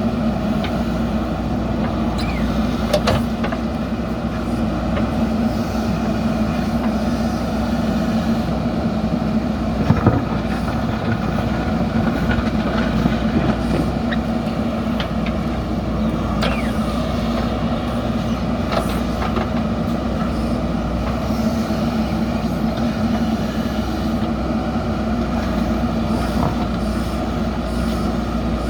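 JCB backhoe loader's diesel engine running steadily as the machine works, with a few knocks and a brief squeal from the digging gear.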